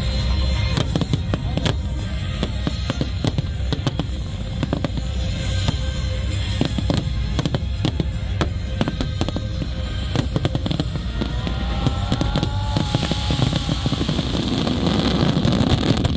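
Aerial fireworks shells bursting in rapid succession: many sharp bangs over a continuous low rumble. A dense crackling from glittering effects builds over the last few seconds.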